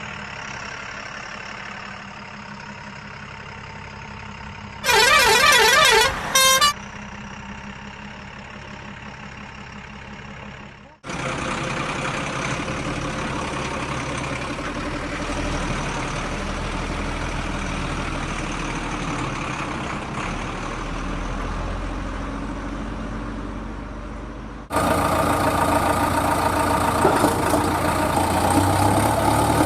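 Heavy diesel vehicle engines running, in several cut-together takes, with a loud horn blast lasting about a second and a half, with a warbling pitch, about five seconds in. The engine sound grows much louder near the end.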